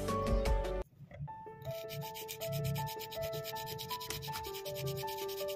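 A 100/180 grit nail file rasping in quick back-and-forth strokes across a plastic practice nail tip, shaping it into a coffin shape. The filing breaks off abruptly just under a second in and resumes a moment later, with a light melody of single notes underneath.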